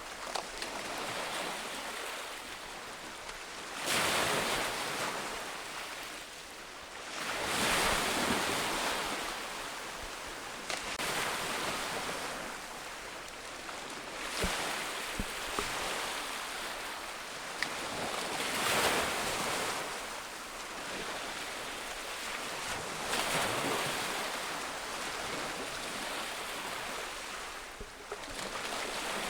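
Ocean waves breaking on a beach, each surge of surf swelling and fading about every four seconds over a steady wash of water.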